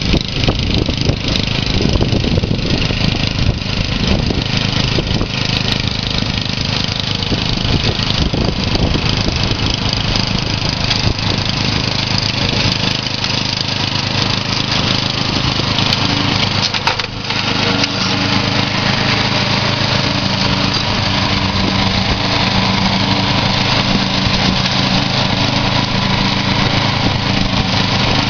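Massey Ferguson MF2012 ride-on mower's engine running steadily under load as its deck tops long paddock grass, with a brief dip in the sound about seventeen seconds in.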